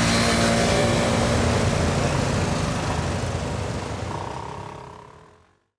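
City street traffic: cars and scooters passing with a steady engine and tyre hum, fading out near the end.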